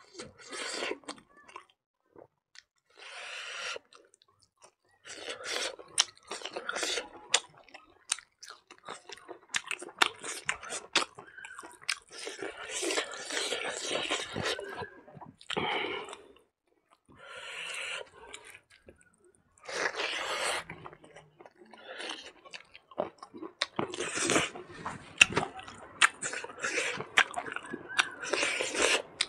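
Close-miked chewing of handfuls of rice and cooked silkworm larvae, with crunches and mouth clicks in irregular bursts separated by short pauses.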